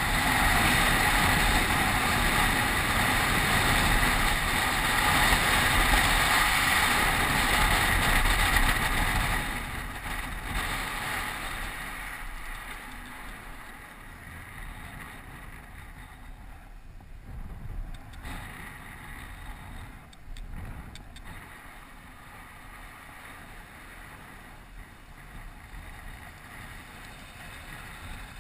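Wind rushing over a helmet-mounted camera's microphone, with a downhill mountain bike's tyres rolling on asphalt. It is loud at first, then grows much quieter after about nine seconds.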